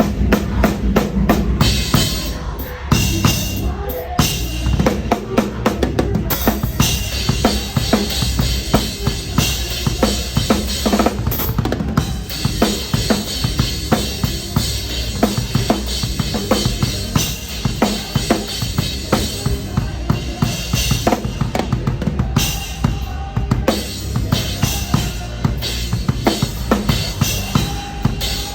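Rock drum kit played live at full tilt, with steady kick and snare hits under a wash of crash and ride cymbals. The kit is a Pearl Reference Series set with a DW bell-brass snare and Zildjian cymbals.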